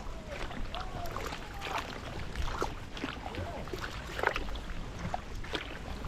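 Pakayak Bluefin 142 hardshell kayak paddled through a thick floating mat of salvinia: a steady rustling swish with irregular crackles and clicks as the hull pushes through the weed.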